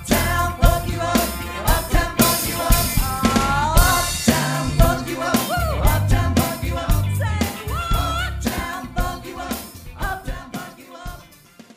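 Cover band playing a pop song: a drum kit keeping a steady beat under a sung vocal line, fading out near the end.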